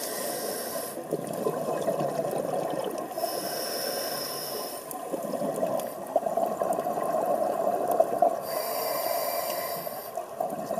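Scuba regulator breathing heard underwater: three hissing inhalations through the demand valve, a few seconds apart. Between them there is bubbling and steady water noise.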